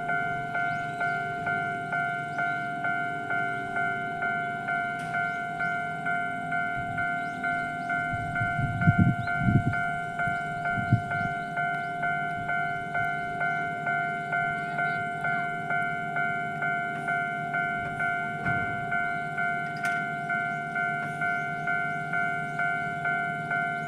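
Japanese railroad crossing warning bell ringing: an electronic ding repeating evenly without a break, over the low rumble of a train. A cluster of heavy clunks comes around nine seconds in and another near eleven seconds, as of train wheels passing over the crossing.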